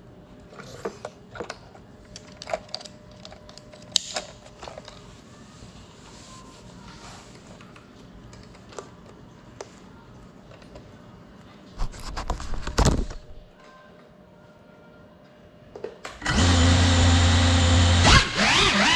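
Small indoor FPV quadcopter: light handling clicks and taps, then a loud burst of about a second some twelve seconds in. From about sixteen seconds its motors whine loudly and steadily, sweeping up and down in pitch with the throttle near the end.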